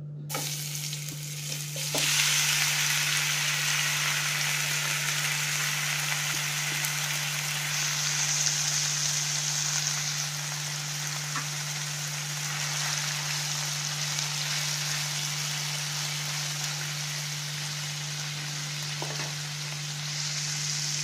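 Marinated anchovies sizzling in hot oil in a non-stick frying pan: a steady sizzle that gets louder about two seconds in, with a spatula stirring them now and then.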